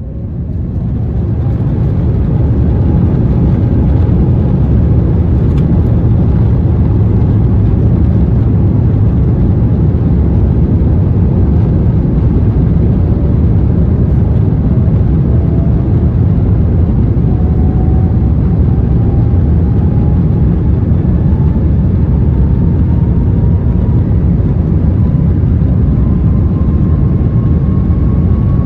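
Airbus A350's Rolls-Royce Trent XWB engines heard from inside the cabin: a loud, deep, steady roar that builds up over the first second or two. A faint tone rises slowly in pitch throughout.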